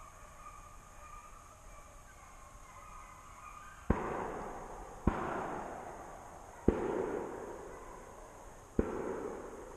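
Four gunshots in quick succession, the first about four seconds in and the rest over the next five seconds, each sharp crack followed by a long echo rolling away through the woods.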